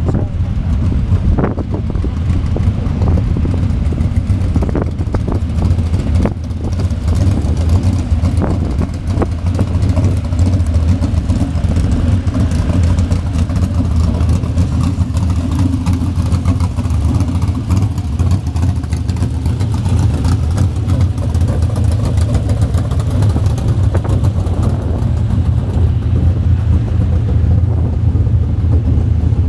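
A steady low engine drone, with a few short knocks in the first few seconds.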